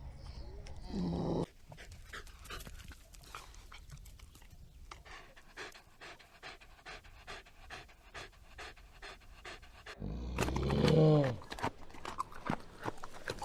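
A dog panting in quick breaths, with a short falling whine about a second in and a louder, longer falling whine about ten seconds in.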